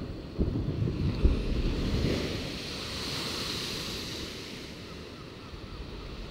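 Rough sea waves breaking against a sea wall and throwing spray over the promenade, with wind buffeting the microphone. A low rumble in the first two seconds gives way to a hiss of spray and surf, loudest about three seconds in, that then fades.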